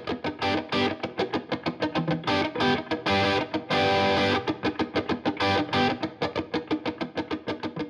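Background music: fast, rhythmic electric guitar with effects.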